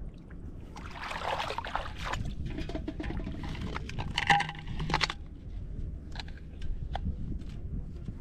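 Wind rumbling on the microphone, with bursts of water splashing and sloshing and scattered small clicks from handling a plastic bottle and fishing line.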